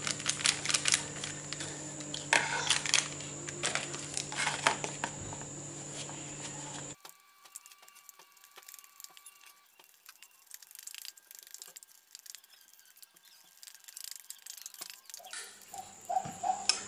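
A metal spoon clinking and scraping in a plastic bowl and a sachet crinkling, over a steady hum. The hum stops abruptly about seven seconds in, leaving faint soft clicks and squishes of hands mashing banana into the powder. Handling noises pick up again near the end.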